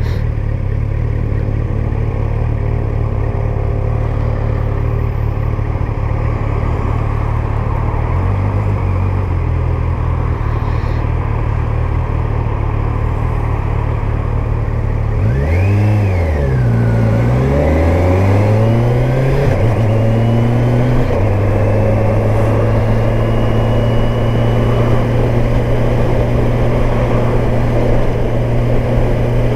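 Kawasaki Versys 1000 S motorcycle's inline-four engine running under way with wind rush. Midway the engine note drops and climbs twice, then holds steady.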